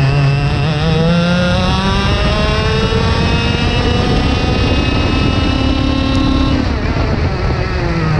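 IAME X30 125cc two-stroke kart engine at full throttle, its pitch climbing steadily as the kart accelerates down a straight. About six and a half seconds in, the note breaks off as the throttle is lifted.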